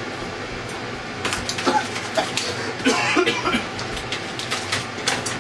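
Kitchen range hood fan running steadily at full speed, with sharp clicks and knocks of small objects handled on the counter and a few short vocal noises in the middle.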